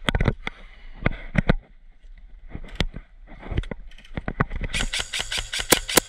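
Airsoft rifle firing a full-auto burst: a fast, even string of sharp cracks, about ten a second, starting near the end. Before it, scattered irregular clicks and knocks.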